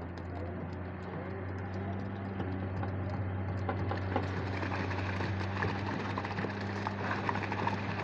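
Concrete pump engine running with a steady low hum while ready-mix concrete pours from the delivery pipe onto the slab, with a wet splattering and a scatter of clicks that grows louder about halfway through.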